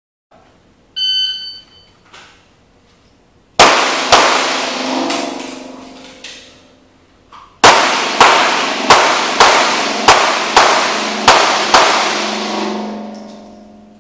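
A shot timer's electronic start beep, then pistol shots with a long echo. Two shots come about two and a half seconds after the beep, and after a pause of about three and a half seconds a string of about nine shots follows, roughly one every half second.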